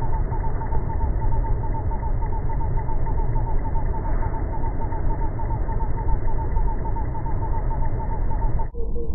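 Steady low outdoor rumble with a fast, evenly repeating chirp several times a second over it. Shortly before the end the sound turns duller and the chirp drops to about half its pitch.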